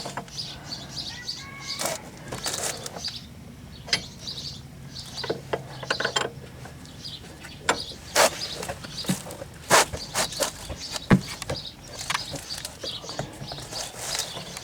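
Scattered metallic clicks and knocks from a wrench and socket working the rear upper ball joint stud nut, with birds chirping.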